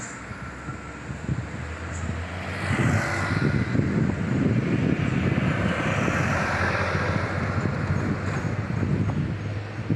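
Motor vehicle engine running close by on the road, over a steady low hum. It grows louder about three seconds in and stays loud until near the end.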